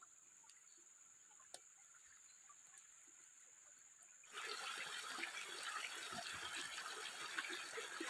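A few faint clicks over near silence, then about four seconds in a steady rush of flowing water starts abruptly.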